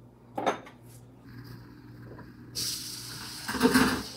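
A dish knocks down on the counter, then about two and a half seconds in a kitchen tap is turned on and water runs with a steady hiss, with dishes clattering under it near the end.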